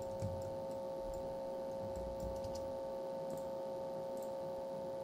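Steady electrical hum from the recording chain, with a few faint scattered clicks of a computer mouse.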